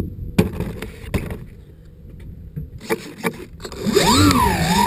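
A few sharp knocks and scrapes from hands handling a model airplane's body close to the microphone. About four seconds in, music with wavering pitched tones starts.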